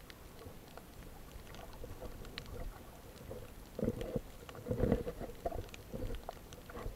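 Muffled water sloshing and splashing with scattered small knocks, growing louder and more uneven from about four seconds in.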